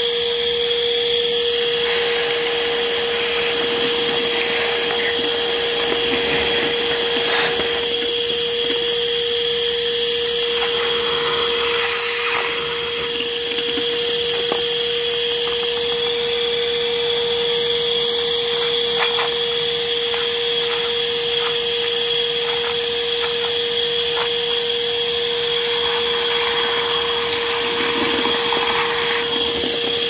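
Ridgid 18V cordless 9-gallon NXT wet/dry shop vac running steadily, a constant motor whine with a fixed pitch, with a few light clicks.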